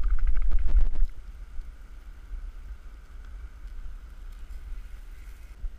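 Eggs sloshing and rattling as they are shaken in a plastic Tupperware container for about the first second. Then the steady hiss of a JetBoil camp stove burner, with wind rumbling on the microphone.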